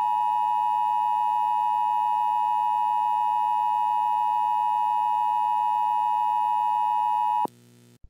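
Emergency Alert System attention signal: a steady, loud two-tone alarm held for about seven and a half seconds, then cut off sharply just before an alert message begins.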